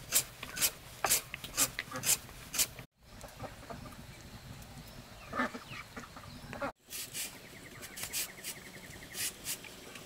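Carrot being shredded on a hand-held julienne shredder: short rasping strokes about twice a second. A sudden cut about three seconds in leaves a quieter stretch with a few scattered sounds, and after a second cut the rasping strokes return.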